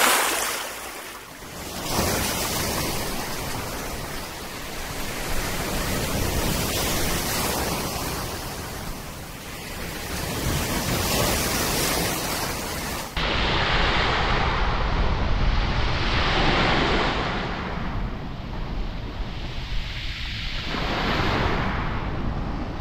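Surf washing in, swelling and fading every few seconds. About halfway through it cuts to a duller recording of small waves breaking and drawing back on a shingle beach, with wind rumbling on the microphone.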